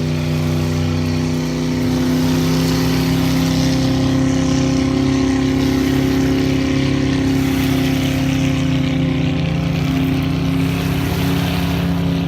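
A motorboat engine running at a steady pitch, over a steady hiss of wind and water.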